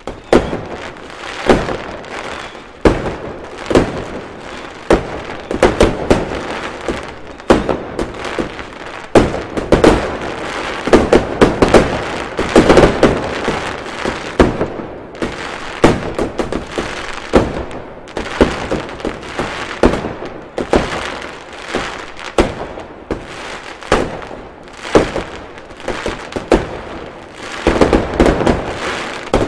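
Many fireworks and firecrackers going off at once: constant crackling with dozens of sharp bangs, busiest in the middle.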